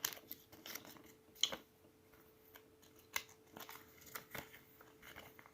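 Paper instruction leaflets being handled and unfolded: faint rustles and small clicks spread irregularly, a few sharper ones about a second and a half and three seconds in, over a faint steady hum.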